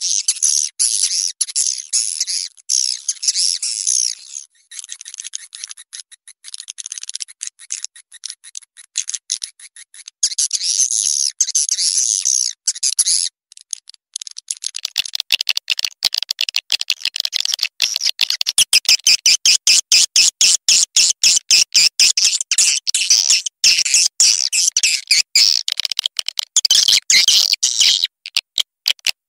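Swiftlet lure-call recording, a mixed track played to draw swiftlets into a nesting house: dense high-pitched twittering chatter, which breaks off briefly about halfway and then goes on under a fast run of sharp clicks.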